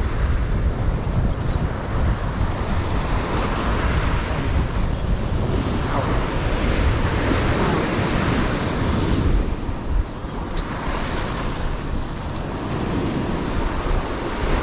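Sea waves washing and surging, with wind rumbling on the microphone; a wave swells louder about halfway through.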